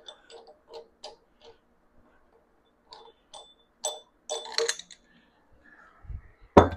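Metal clicks and clinks of a threaded harmonic balancer installer tool being unscrewed from the crankshaft snout of a small block Chevy and pulled off the balancer, with a louder metal clunk near the end.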